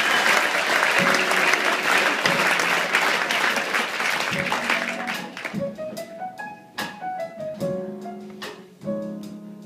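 Audience applause dying away over the first few seconds while quiet piano notes and chords are played over low plucked double bass notes.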